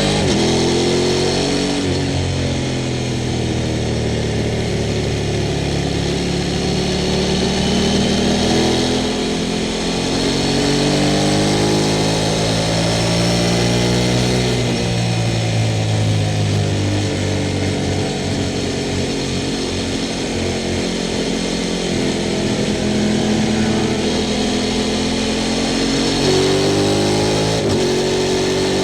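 Sport motorcycle engine being ridden hard, revs climbing through the gears and dropping on each shift or roll-off, rising and falling several times.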